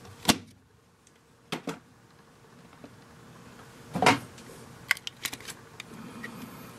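Sharp clicks and taps from handling a pair of plastic-framed sunglasses and their hard case. The loudest comes just after the start, with a few more spread through, and faint rustling between.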